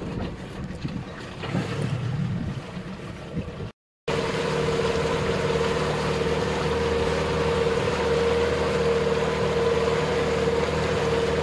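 Wind and water noise at first, then after a brief cut about four seconds in, a small boat's engine running steadily at an even pitch.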